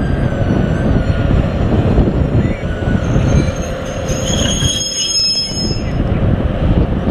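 V90 diesel-hydraulic shunting locomotive moving slowly with a string of flat wagons, its diesel engine running under high-pitched wheel squeal that grows strongest about four to six seconds in, with a few clicks.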